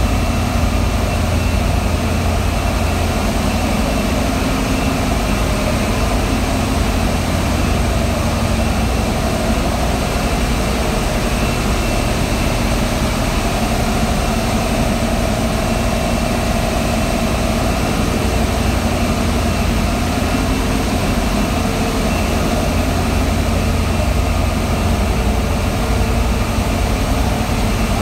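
Belliss & Morcom WH28H3N high-pressure air compressor running at a steady pace, a loud, even machine drone with a deep hum.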